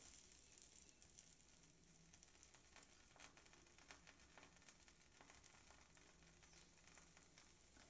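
Faint sizzling with small crackles from a stuffed chapati of raw dough cooking dry on a hot griddle (tawa).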